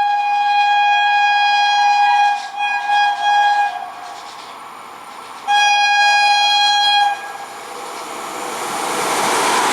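Indian train's air horn: a long blast, a few short blasts, then another long blast about five and a half seconds in. Near the end the rumble of the approaching train rises.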